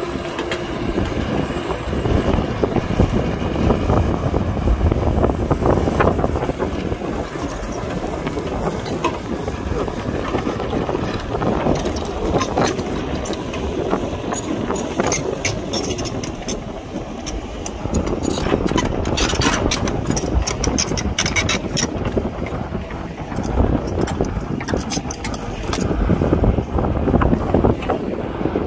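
Heavy diesel machinery, an excavator working beside a dump truck, running steadily, with scattered knocks and clatter through the middle and again near the end.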